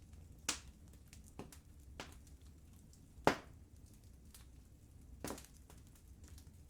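Wood fire crackling: sharp pops and snaps from burning logs over a low, steady rumble, with one loud crack about halfway through.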